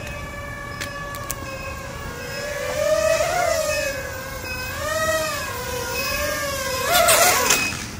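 Small FPV quadcopter's motors and propellers whining in flight, the pitch rising and falling with throttle a few times. Near the end there is a louder flurry of quick pitch changes.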